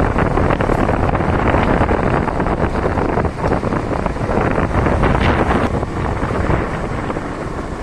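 Heavy wind buffeting on the microphone while moving along a road, a dense rushing noise that eases somewhat in the last couple of seconds.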